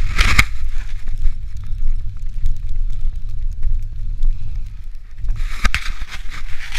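Wind buffeting a small camera microphone on a moving bicycle, a steady loud rumble. Two short hissing bursts stand out, one right at the start and one about five and a half seconds in.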